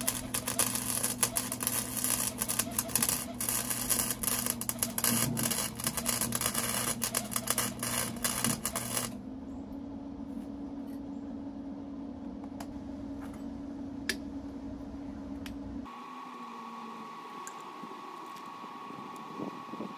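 Northern Tool wire-feed welder arc crackling as a bead is laid on steel square tube, lasting about nine seconds over a steady hum. The arc then stops and only the hum remains.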